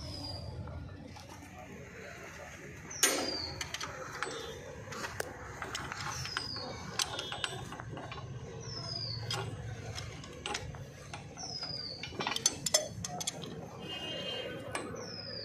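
Metal clicks and knocks of a long-handled wrench being worked on bolts of a tractor's rear axle brake housing, with a sharp clank about three seconds in and a quick run of clicks near the end. A bird repeats a short, high, falling chirp about every second and a half.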